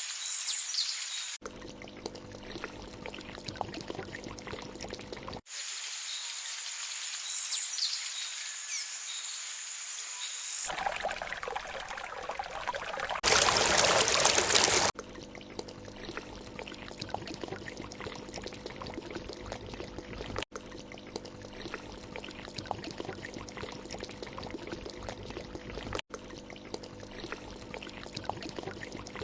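Edited rainforest ambience of running water, with high thin bird chirps in the early segments and a much louder rushing burst about halfway through. The sound changes abruptly at several cuts.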